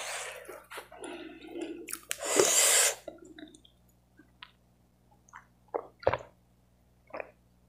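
A loud breathy rush of air lasting about a second, then a person gulping water from a plastic cup: a few soft, separate swallows over the last few seconds.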